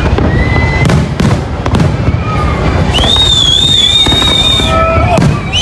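Fireworks display going off in quick succession: a constant low rumble of explosions with many sharp bangs and crackles. A long high whistle runs through the middle, from about three seconds to nearly five seconds in.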